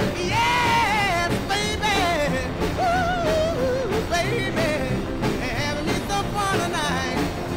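Background music: a song with a singing voice.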